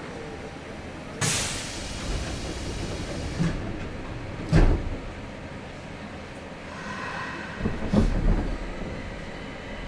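Onboard running sound of a Nagoya Municipal Subway 2000 series car with IGBT VVVF inverter: a steady rumble and hiss of the train moving through the tunnel. A sudden hiss comes about a second in, and sharp thumps come about four and a half and eight seconds in.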